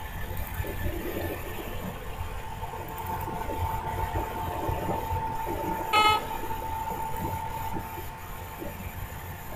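Steady low background rumble with a faint hum, broken about six seconds in by one short horn toot, the loudest sound.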